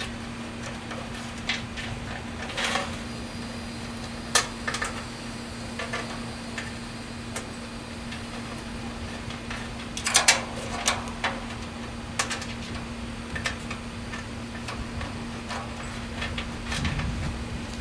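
Scattered light metallic clicks and clanks of metal parts and tools being handled while an air-conditioner condensing unit is put back together, with the loudest cluster about ten seconds in. A steady low hum runs underneath.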